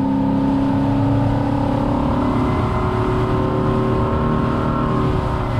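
Boat's outboard engine running steadily at speed with the boat under way, mixed with wind and water rush, easing off slightly near the end.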